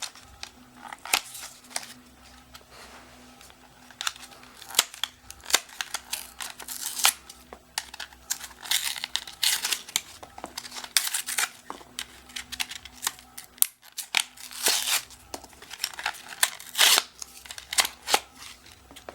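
A disposable camera being taken apart by hand: tearing and crinkling of its cover, with irregular sharp clicks and snaps of the plastic case being pried open to free the AA battery.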